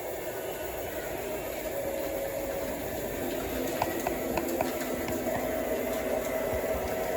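O gauge model train running on the layout track: a steady motor and rolling noise with a few faint held tones, and a handful of light clicks about four seconds in.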